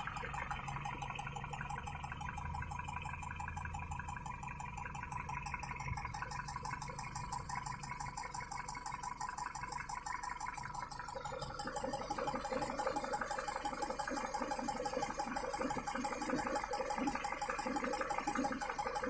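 Engine running with a fast, even knocking tick whose cause the owner cannot identify. It grows louder about eleven seconds in.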